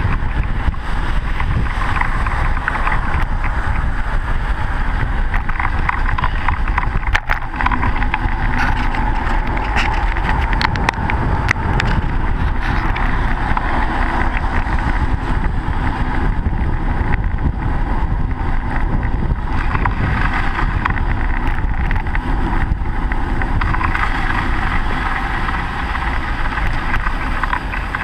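Steady rumble of wind on the microphone and road noise from a moving bicycle, with car traffic running alongside. A sharp knock about seven seconds in and a few light rattling clicks soon after.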